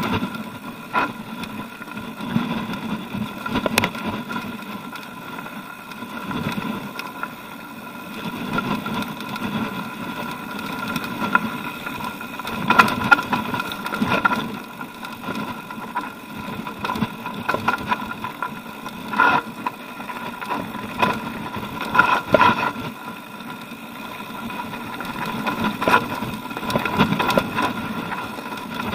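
Mountain bike rolling down rocky singletrack: tyres crunching over loose stones and the bike rattling and knocking over bumps, with a steady buzzing hum throughout. The sharpest knocks come about 13, 19 and 22 seconds in.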